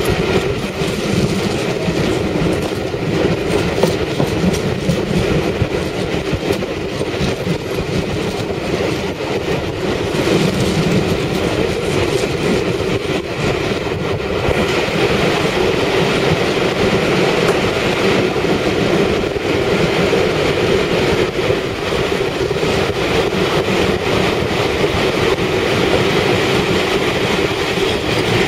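A railway train running on the track, with a steady noise of wheels on rails.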